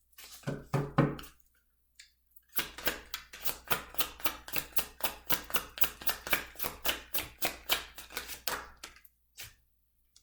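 A deck of tarot cards being shuffled by hand: a fast, even run of card slaps, about six a second, starting a couple of seconds in and stopping shortly before the end.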